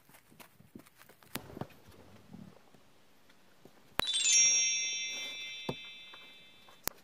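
Faint scuffling and soft taps of ferrets moving on a fabric-covered floor, then, about four seconds in, a bright bell-like chime rings several high tones together and fades away over about three seconds.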